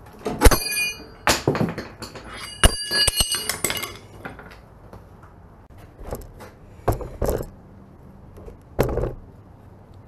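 Metal clanking as tools and steel parts knock against the steel end housing of a power rake. A sharp ringing clank comes about half a second in and a quick run of ringing clinks about three seconds in, followed by a few duller knocks.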